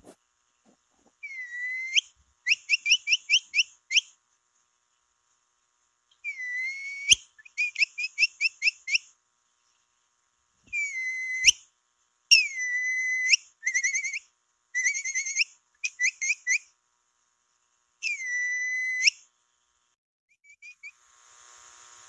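Capybara lure call: repeated high whistles, alternating runs of quick short chirps, about five a second, with long held whistles that dip and turn up at the ends. A few sharp clicks fall between phrases.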